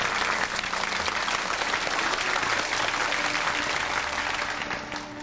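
Banquet guests applauding: many hands clapping steadily, dying away near the end.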